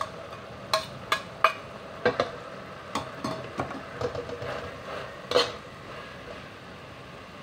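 Metal spatula scraping and clicking against a wok while stir-frying okra, over a faint steady frying hiss. The strikes come irregularly, the loudest about five seconds in, and die away near the end.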